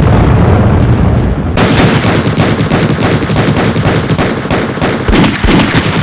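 A loud, continuous barrage of rapid bangs, like a sound-effect clip of gunfire and explosions. It turns brighter about a second and a half in, where a second clip seems to be spliced on.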